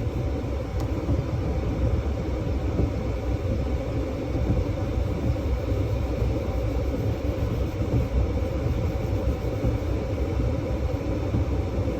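Steady low rumbling noise with no clear events in it.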